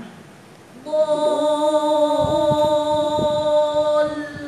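A woman's voice holding one long, steady chanted vowel for about three and a half seconds, starting about a second in. It is the drawn-out mad lazim in Quran recitation, held for its full count. A few soft thumps sound under it midway.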